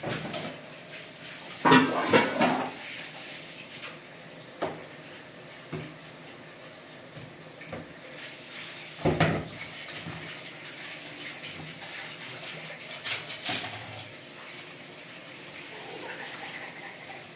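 Dishes being washed by hand at a kitchen sink: crockery, cutlery and plastic bowls clatter against each other and the sink in separate knocks, loudest about two seconds in and again near the middle, over running water.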